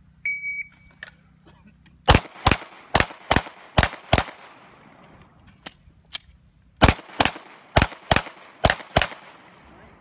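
A shot-timer beep, then a semi-automatic pistol fires six quick shots in pairs, falls silent for about two and a half seconds apart from two faint clicks, and fires six more in pairs. This is the El Presidente drill: two shots on each of three targets, a magazine reload, then two more on each.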